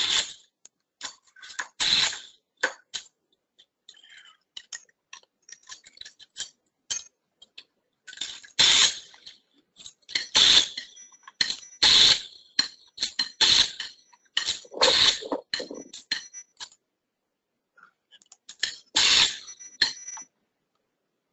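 Handheld Kodiklip fastening tool snapping clips onto the crossings of a fiber-reinforced polymer rebar grid: a sharp, metallic snap every second or two, with lighter clicks in between.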